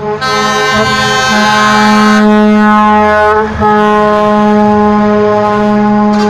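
Semi-truck air horn held in a long, loud, steady blast, breaking off briefly near the start and again about three and a half seconds in.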